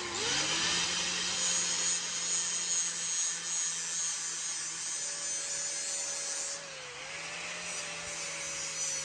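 Small electric angle grinder with a sanding disc running against a rusty steel pistol slide: a steady motor whine over a gritty hiss. The whine's pitch sags briefly about seven seconds in, then recovers.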